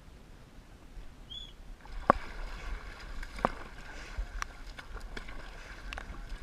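Dragon boat paddling on water: a rushing, splashing noise begins about two seconds in, with irregular sharp knocks roughly once a second, the loudest two near the start of it.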